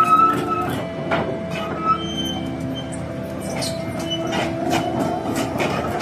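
Volvo EC460 crawler excavator running as its boom lifts and the upper structure swings, with held squealing tones that change pitch every second or so and scattered metallic clanks.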